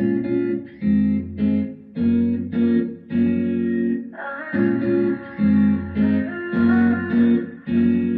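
A pop song's guitar-led intro played back through a Geneva Decon S speaker in a small room. It starts abruptly out of silence, with rhythmic plucked chords about twice a second and a higher melodic line joining about halfway through.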